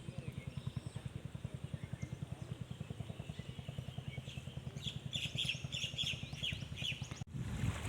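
A steady, rapid low thudding of about ten beats a second, like a small engine running. Midway, a bird gives a quick series of about eight high chirps. Near the end the sound cuts off abruptly to wind and water noise.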